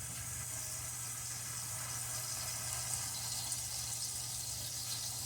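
Sirloin hamburger patties sizzling steadily in grease in a hot skillet.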